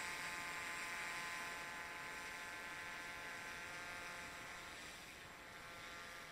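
Multirotor drone's electric motors and propellers buzzing with a steady pitch, growing fainter as the drone moves away.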